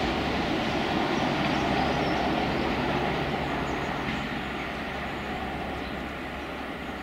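Class 37 diesel locomotive approaching under power, its English Electric V12 engine running with a steady low drone. It is loudest about two seconds in and eases slightly after that.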